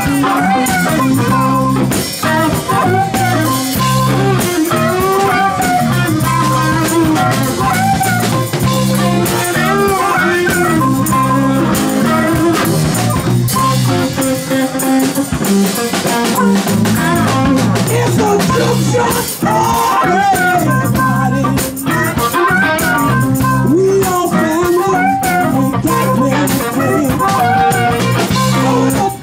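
Live electric blues band playing a loud, steady groove: electric guitar over bass and drum kit, with a tambourine and some singing.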